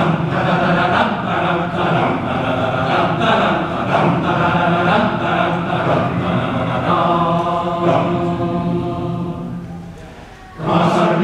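Men's choir singing in several parts. The chord dies away about ten seconds in, and the voices come in again strongly just before the end.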